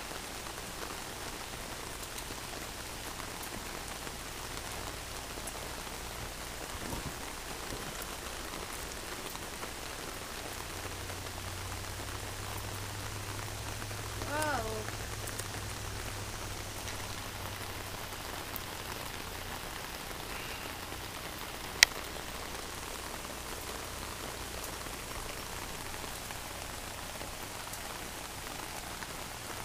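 Steady rain falling on pavement, an even hiss. A brief voice sound comes about halfway through, and a single sharp click about two-thirds of the way in.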